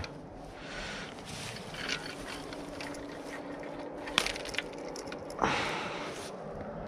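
Fishing tackle being handled: a sharp click about four seconds in, then a short rustling scrape that fades over about a second, over a faint steady low hum.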